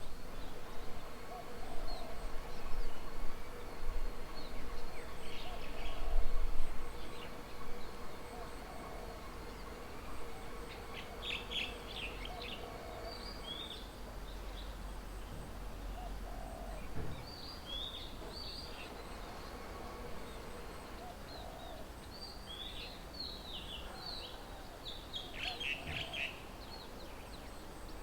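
Small birds chirping in short clusters of high notes, busiest in the second half, over a lower call that repeats every couple of seconds. A low rumble sits under the first several seconds.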